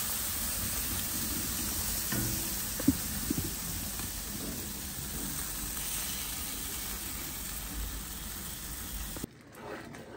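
Food sizzling as it fries in a hot pan: a steady hiss, with a few short knocks about two to three seconds in. The sizzle cuts off suddenly near the end.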